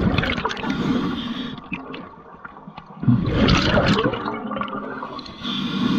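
Underwater bubbling and gurgling from a diver's exhaled air rushing past the camera. It comes in loud spells with a quieter lull in between, and a fresh burst starts suddenly about three seconds in.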